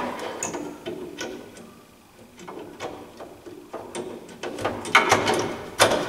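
Plastic clicks and knocks of a replacement filter cartridge being seated onto its hinge inside a VESDA-E smoke detector, with a few louder knocks near the end.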